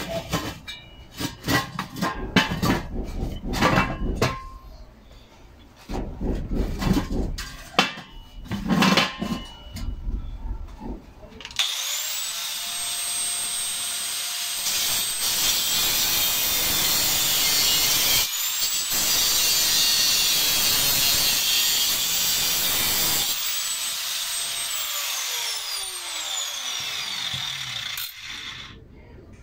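Angle grinder cutting into a steel refrigerant cylinder. After several seconds of irregular knocks and clatter, the grinder spins up about 12 seconds in and cuts steadily with a high whine. It stops briefly, starts again, and winds down with falling pitch near the end.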